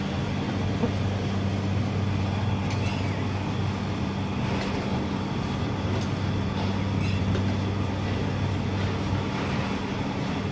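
Steady roar of a high-flame gas burner under a steel karahi wok of simmering chicken curry, over a steady low hum, with a few faint scrapes of the steel spatula against the wok.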